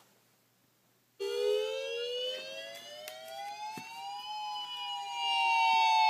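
Recorded electronic siren wail tone, a Federal Signal wail, played from an iPad through a small speaker with a paper cup as a horn. It cuts out right at the start, stays silent for about a second, then starts again, its pitch rising slowly for about three seconds and then slowly falling.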